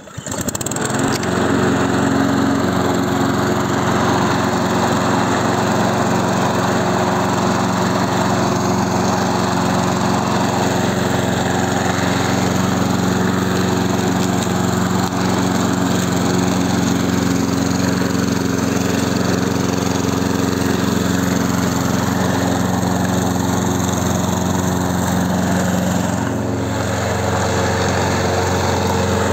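Honda Marinox lawn mower's Honda four-stroke engine catching right at the start, then running steadily at full mowing speed after its pre-season service. A few seconds before the end its note dips and shifts slightly.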